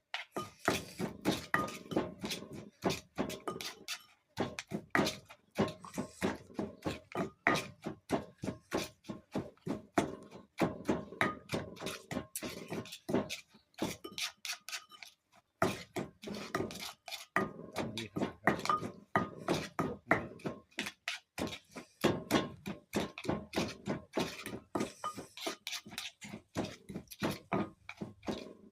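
Pestle pounding green papaya salad in a wooden mortar. The knocks come evenly at about two to three a second, in spells broken by short pauses.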